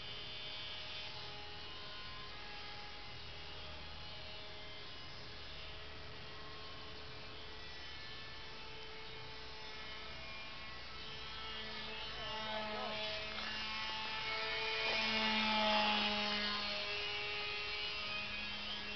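Radio-controlled model airplane's motor and propeller whining in flight, the pitch shifting up and down as the throttle and flight path change. The whine grows louder from about halfway through, peaks about three-quarters of the way in as the plane passes closest, then eases off.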